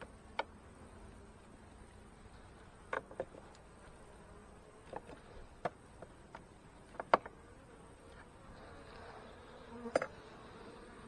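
Honey bees buzzing steadily around an open hive, growing louder near the end. Scattered sharp clicks and knocks come from hive frames and boxes being handled as the hive is put back together, the loudest about seven and ten seconds in.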